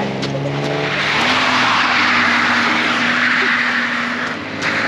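BMW 318ti's four-cylinder engine with its revs dropping and then holding steady, under a loud hiss of tyres sliding over snow and ice. The hiss breaks off briefly near the end.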